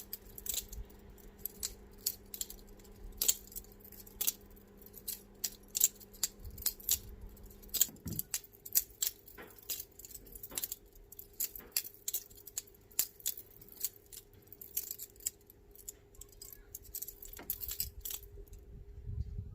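Boker balisong training knife flipped open and closed again and again, its handles clicking and clacking against each other and the blade in quick, irregular runs, over a faint steady hum.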